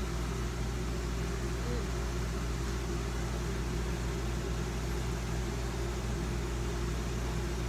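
A steady low mechanical hum with an even hiss, unchanging throughout, like an appliance or fan running in the room.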